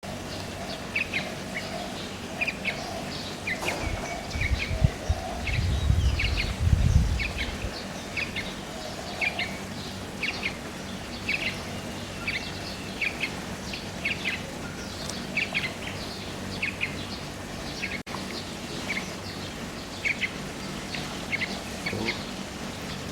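Yellow-vented bulbul calling: short, bright notes repeated about once or twice a second. A low rumbling noise comes in from about four to eight seconds in.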